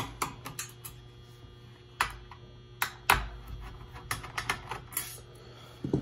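Irregular light clicks and taps of a small Phillips screwdriver working screws out of a sheet-metal cover plate, with one firmer knock about three seconds in.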